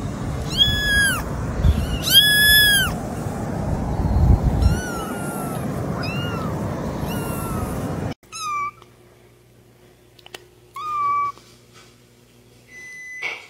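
Ginger kitten meowing again and again, the first two calls long and loud and the later ones shorter and fainter, over a steady low rushing noise. About eight seconds in the sound cuts, and a tabby kitten gives two short, quieter meows.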